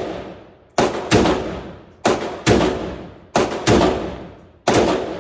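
Zastava ZPAP AK-pattern rifle fired in quick pairs of shots, about a third of a second apart, a new pair every second and a bit, each shot ringing out briefly after the crack.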